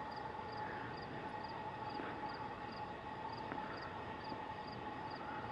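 Quiet outdoor ambience: a steady hum with a faint high tick repeating evenly about twice a second.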